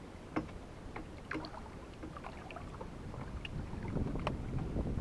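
Water lapping and splashing against a moving jon boat's hull, with a few sharp ticks about half a second, one and a half seconds and four seconds in, and a low wind rumble on the microphone that builds toward the end.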